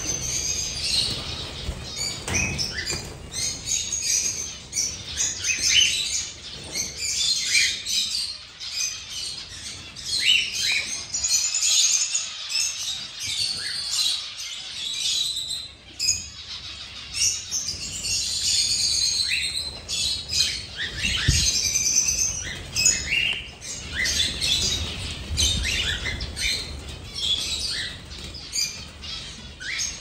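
A crowd of aviary finches, zebra finches among them, chirping and calling constantly in many short overlapping notes, with the wing flaps of birds flying about.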